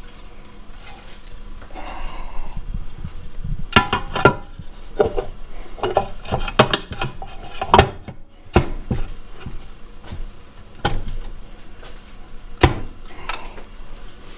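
Metal parts and hand tools clinking and clanking as a Jeep 231 transfer case is being put back together: an irregular series of sharp knocks, some with a short ring, the loudest a few seconds in and again near the end.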